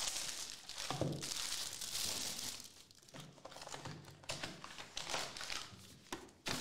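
Plastic shrink wrap crinkling loudly as it is pulled off a trading-card box, followed by quieter rustling of the cardboard box being opened and a foil card pack handled, with a click near the end.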